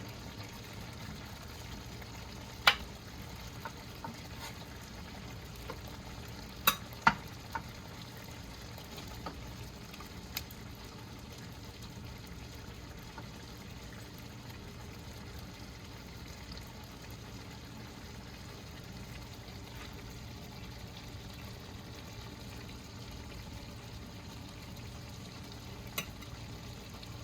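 A few sharp clinks of a utensil against a cooking pot and plate while serving up cooked smoked turkey necks, spread out over a steady faint hiss.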